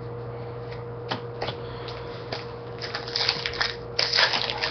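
Trading cards being handled with a few light clicks, then from about three seconds in the crinkling of a foil card pack wrapper being opened.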